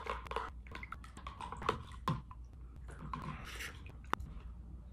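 Glue-and-borax slime being stirred fast with a spoon in a plastic bowl: irregular wet clicks and scrapes as the mixture thickens and comes together.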